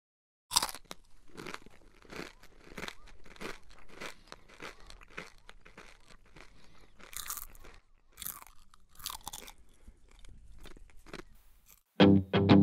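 Popcorn being chewed close to the microphone: an irregular run of crunches, a few a second. Right at the end a band comes in loudly with strummed guitar.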